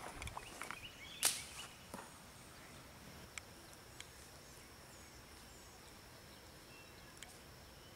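Camera handling noise as the camera is moved and set down: a few clicks and rustles with one sharp knock about a second in and a smaller one shortly after. Then a quiet outdoor background with a faint steady high-pitched tone and a few scattered ticks.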